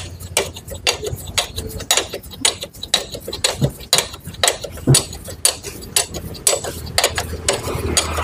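Irregular light metallic clicks and clinks, several a second, with a couple of louder knocks, as a bolt on the Honda Grand's clutch cover is worked and tightened.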